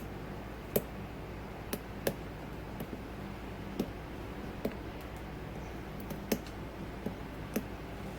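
Small sharp clicks from a lock pick working the pin stack of a Corbin padlock under light tension, about eight of them at irregular spacing over a faint steady hum. They are the little pops of pins setting, which the picker puts down to serrated pins or master wafers.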